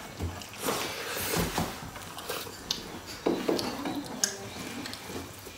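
Eating rice by hand from metal plates: irregular scraping and small clinks of fingers working the rice against the plates, mixed with close chewing and mouth sounds.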